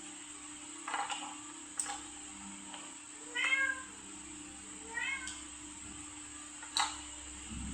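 A domestic cat meowing twice: a longer meow about three seconds in and a shorter one about five seconds in. A few sharp clicks are heard around them.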